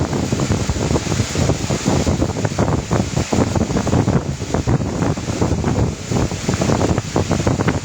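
Air buffeting the microphone: a loud, uneven, fluttering rumble of wind noise.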